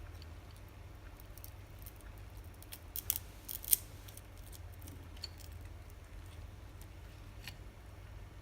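Small clicks and taps of the plastic parts and circuit board of a remote microphone being handled during a teardown, with a cluster of sharper clicks about three seconds in and a single click near the end. A low steady hum runs underneath.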